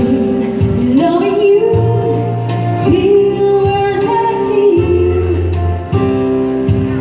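A woman sings a pop ballad into a microphone over a single-keyboard (organ tunggal) backing from a Korg arranger keyboard, with bass and a steady programmed beat. Near the end she lowers the microphone and the keyboard carries on alone.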